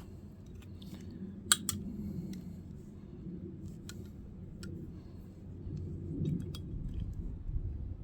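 Hand work with tools and small parts: scattered small clicks and taps, with two sharp clicks close together about a second and a half in, over a low steady hum.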